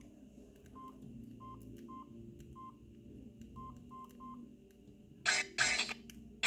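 Samsung SGH-D500C mobile phone keypad tones: eight short, identical beeps at uneven spacing as keys are pressed. Near the end come two short, loud bursts of noise.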